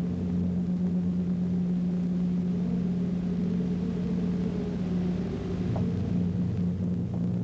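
Low, droning music accompanying a silent film: sustained low notes with a slowly wavering higher line above them.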